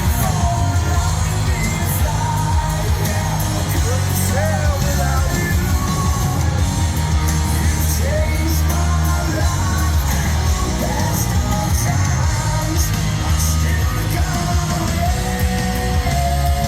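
Hard rock band playing live at full volume: heavy distorted low end with a sung, shouted vocal line over it, echoing around a large venue.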